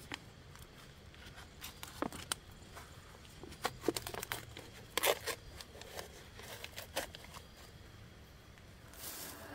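Plastic wrapper and paper lid of an instant ramen cup crinkling and tearing as it is opened by hand, a run of short rustles and crackles. A steady hiss starts just before the end.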